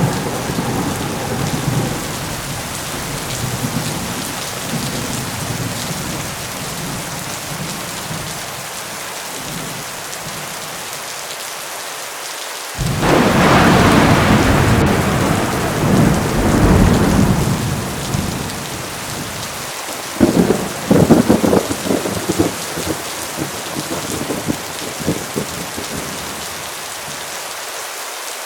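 Heavy rain falling steadily through a thunderstorm. A rumble of thunder fades over the first few seconds, a loud thunderclap breaks in suddenly about halfway and rolls on for several seconds, and a run of sharp crackling thunder follows a few seconds later.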